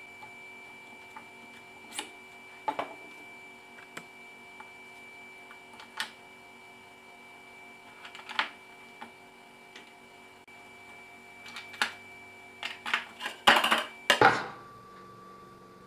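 Hard knocks and clicks of a trim router, its base and aluminium rail parts being set down and shifted on a plywood workbench, one every second or two over a faint steady hum. Near the end comes a quick, louder run of clattering as a plywood board is lifted off the bench.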